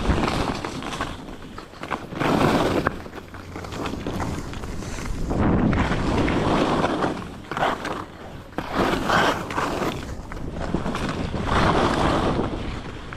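Head alpine skis scraping and carving through chopped-up, crusty snow, the hiss swelling with each turn about every two seconds.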